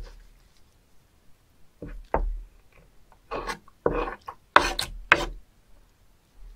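Gloved hands squeezing, lifting and rubbing slippery live spoon worms against a wooden cutting board wet with their body fluid. The sound comes in several short bursts, starting about two seconds in.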